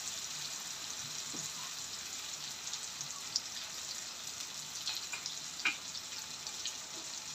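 Sliced onions, garlic and tomatoes frying in oil in a nonstick wok: a steady low sizzle with a few scattered crackles.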